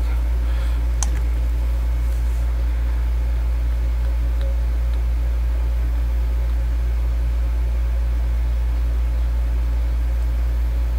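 Steady low hum with a faint hiss over it, and one short click about a second in.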